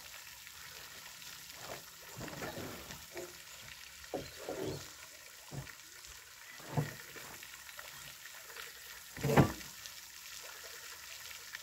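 Timber deck joist being set into metal joist hangers: several irregular knocks and scrapes of wood on wood and metal, the loudest about nine seconds in, over a faint steady hiss.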